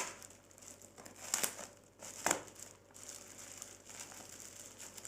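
Cardboard box and packing being cut open with a knife and handled: crinkling and rustling, with sharp rips about one and two seconds in.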